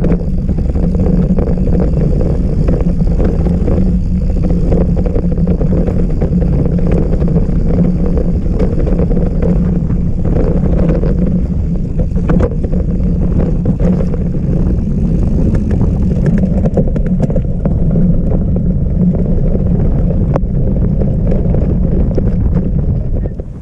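Mountain bike ridden along a trail, picked up by a GoPro mounted on the bike or rider: steady tyre and wind noise on the microphone, with frequent rattles and knocks as the bike goes over rough ground.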